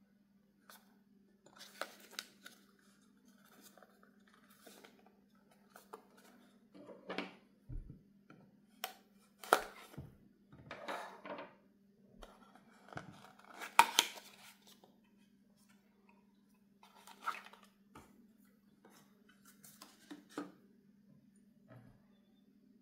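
Hands opening a small cardboard box and lifting out a glass shot glass: scattered rustling, scraping and tapping of cardboard with a few sharp clicks, loudest about ten and fourteen seconds in, over a steady low hum.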